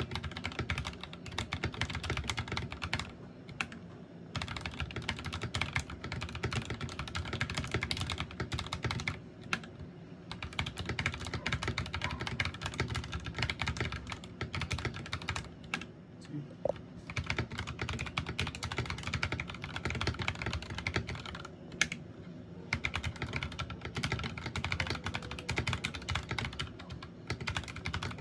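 Typing on a Magegee MK Star61 mechanical keyboard with blue switches: fast, continuous key clicks in runs of several seconds, broken by brief pauses.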